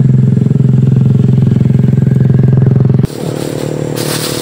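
A small engine running steadily and close by with an even pulsing beat. About three seconds in it drops abruptly to a quieter run at a different pitch.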